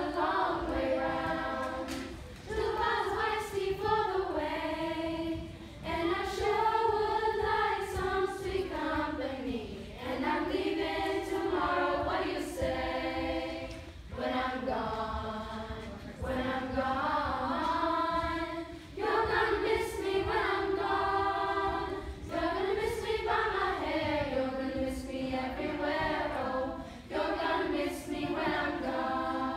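A children's choir singing a song in phrases of a few seconds, with brief breaks between the phrases.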